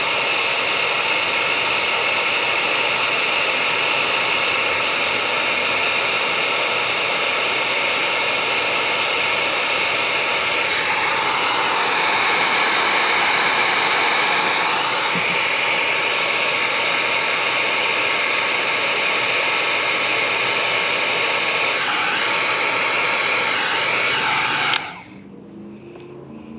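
Electric heat gun blowing steadily while heating heat-shrink wire connectors on bilge pump wiring. It switches off suddenly about 25 seconds in.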